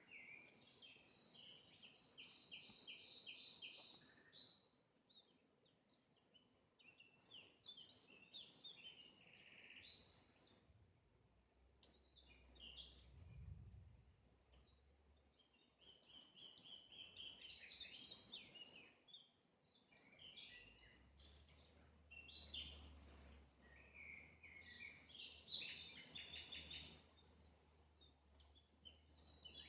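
Faint songbirds singing in repeated phrases of chirps and quick trills. A low, steady rumble comes in partway through.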